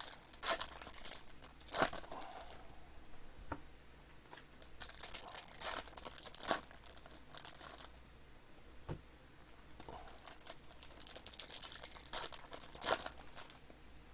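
Plastic trading-card packaging crinkling and being torn open by hand, in irregular bursts with short quieter pauses.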